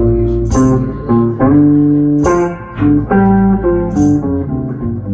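Live band playing a slow instrumental passage between sung verses: guitar notes over a bass line, with a bright crash about every second and a half to two seconds.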